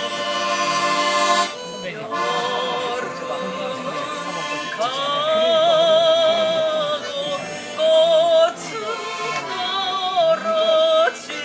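A woman singing a Korean song over instrumental accompaniment, holding several long notes with strong vibrato.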